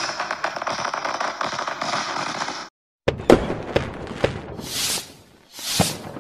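Fireworks: dense crackling for about two and a half seconds, then a sudden brief silence, followed by several sharp bangs and two hissing whooshes.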